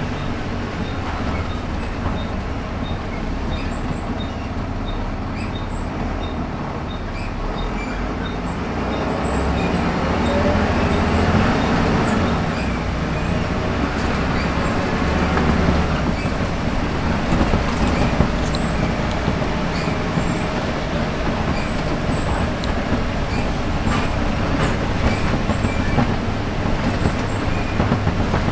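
Volvo B7RLE single-deck bus's rear-mounted diesel engine and drivetrain running on the move, heard from inside the saloon, with steady road noise. About nine seconds in it grows louder as the bus pulls harder, and stays fuller for the rest of the run.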